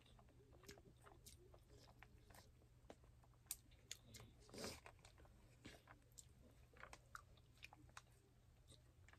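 Faint eating sounds: spoons clicking and scraping in a foil tray of chicken biryani, with quiet chewing, a scatter of small irregular ticks.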